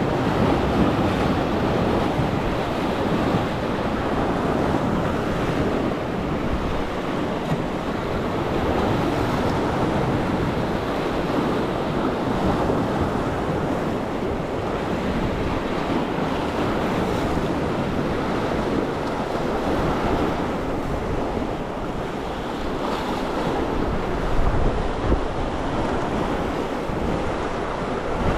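Steady wash of sea waves, with wind buffeting the microphone.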